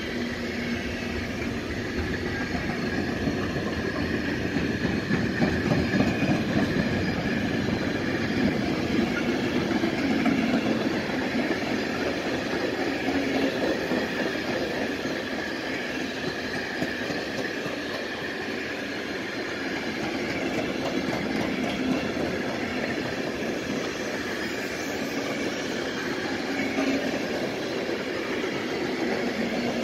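Container freight train passing close by: the flat wagons' steel wheels run steadily over the rails, a little louder in the first third.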